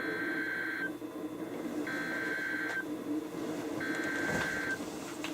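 NOAA Weather Radio SAME header: three raspy digital data bursts, each just under a second long and about two seconds apart, over a steady low hum. The bursts are the coded start of a new alert message, which weather alert radios decode.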